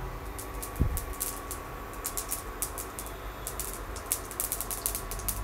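Whole spices (mustard seeds, dried red chilli, cinnamon, bay leaf, cloves and black peppercorns) sizzling in hot oil for a tempering, with quick, irregular sharp pops and crackles. There is a single low thump about a second in.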